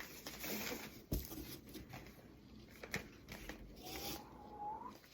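Quiet handling of a cardboard box and its packaging: light rustling with a few soft taps and clicks, and a faint rising squeak near the end.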